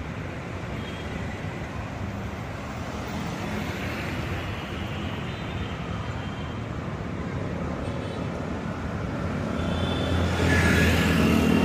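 Road traffic at a city junction: a steady mix of engine and tyre noise. It grows louder about ten seconds in as motorcycles pass close by.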